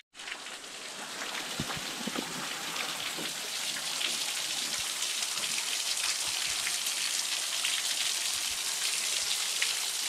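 Thin, low-flow waterfall pattering and splashing onto rock, a steady rain-like spatter of many drops. It fades in over the first second.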